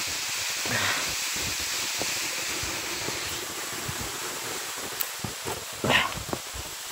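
Steady rushing of a nearby waterfall, heard as an even hiss. Footsteps on a dirt trail sound as faint irregular thuds.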